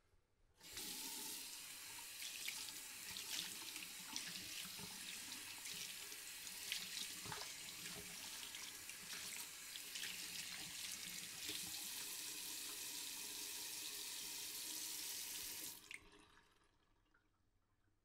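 Water running from a tap into a sink, a steady splashing that starts just after the beginning and cuts off sharply about two seconds before the end.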